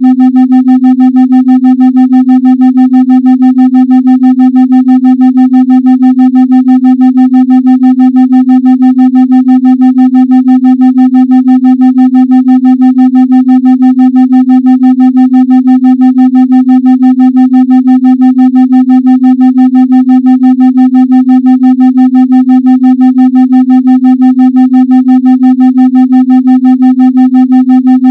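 Steady 256 Hz sine-like tone, loud, pulsing evenly about three and a half times a second, with fainter overtones above it: a 3.5 Hz pulsed entrainment tone for meditation.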